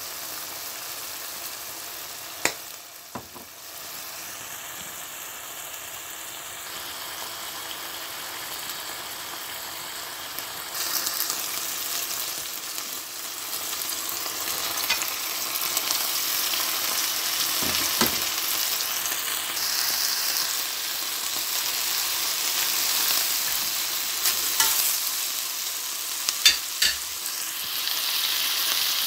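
Chicken strips and onions, later joined by sliced bell peppers, sizzling in oil in a non-stick frying pan. The sizzle grows louder about a third of the way in, with a few sharp clicks of a utensil against the pan as it is stirred.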